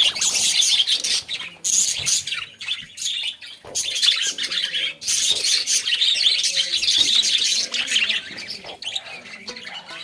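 Baby budgerigar chirping and chattering in a dense, high-pitched twitter that comes in bursts, with brief pauses a few seconds in and softer near the end.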